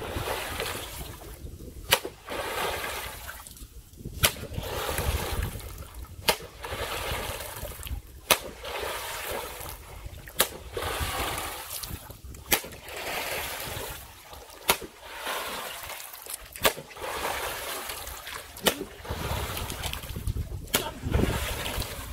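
Shallow muddy water being struck and splashed hard again and again, about once every two seconds, each sharp slap followed by a spatter of falling spray.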